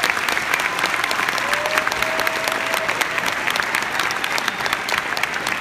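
A large crowd in an arena applauding steadily, a dense mass of clapping that makes up a standing ovation.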